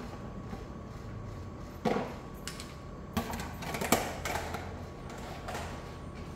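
Knocks and clatter on a plastic cutting board as peeled garlic cloves and shallots are tipped out of a plastic tub onto it: sharp knocks about two, three and four seconds in, over a faint steady hum.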